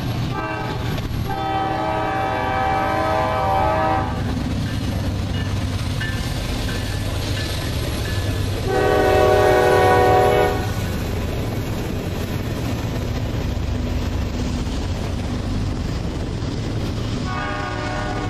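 Diesel freight locomotive horn blowing for a grade crossing. There is a short blast, a long one from about one to four seconds in, a louder long one at around nine to ten seconds, and another starting near the end. Underneath runs the steady rumble and clatter of the freight cars passing close by.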